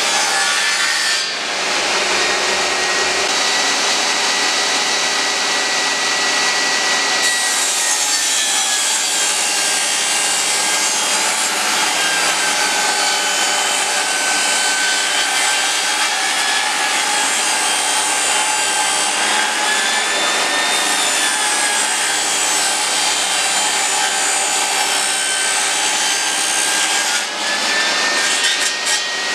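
Benchtop table saw running and ripping wooden boards lengthwise along its fence: a continuous loud whine with cutting noise, its pitch sagging and recovering a few times as the wood is pushed through.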